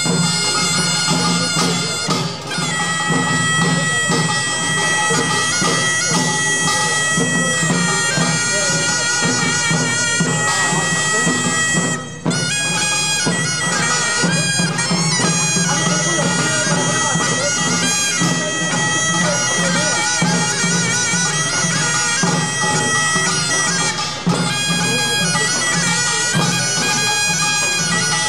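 Korean pungmul band playing: kkwaenggwari small gongs clanging in a fast rhythm over buk drums and jing gong, with a held, reedy melodic tone on top.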